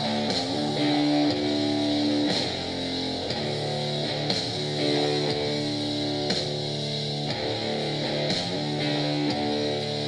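Guitar music without singing, played through a JBL Charge 5 portable Bluetooth speaker for a sound test.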